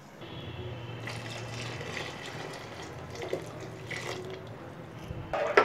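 Water poured steadily from a vessel into a large metal pot of ground masala paste, splashing into the liquid as the pot fills. A short sharp sound comes near the end.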